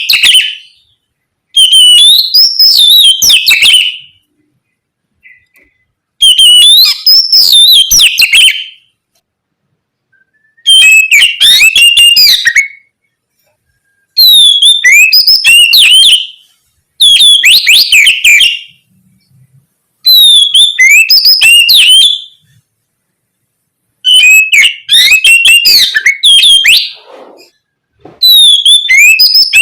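Oriental magpie-robin (kacer) singing loud, varied phrases of rapid, sliding whistled notes. Each phrase lasts two to three seconds, with short pauses between, about nine phrases in all.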